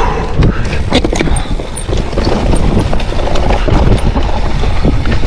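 Hardtail mountain bike clattering at speed down a rough trail: many irregular sharp knocks and rattles from the bike hitting bumps, over a constant low rumble.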